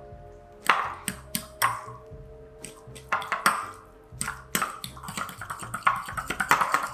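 A utensil clinking and scraping against a bowl in irregular taps as softened butter is mixed with garlic and seasonings.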